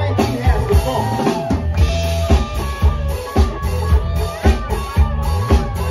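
Live band playing an up-tempo song, with the drum kit's kick and snare setting a steady beat of about two hits a second over a heavy bass line and pitched melody.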